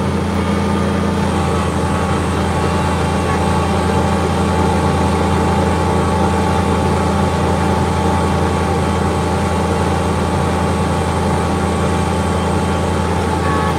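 Kubota BX23S compact tractor's three-cylinder diesel engine running steadily under load, driving a front-mounted snowblower as it cuts through deep snow, heard from inside the tractor's enclosed cab.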